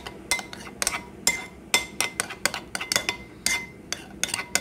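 Metal spoon stirring yogurt raita in a glass bowl, clinking against the glass in a quick, uneven run of about two to three clinks a second.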